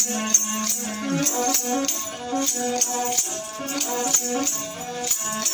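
Pulluva veena, the bowed one-string folk fiddle of Kerala, playing a short melody line with no voice. A steady rattling beat, about two or three strokes a second, keeps time alongside the bow strokes.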